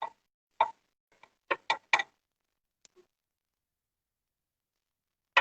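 About six short, sharp knocks and clicks over the first two seconds: a metal spatula pressing and tapping a quesadilla on a hot tawa.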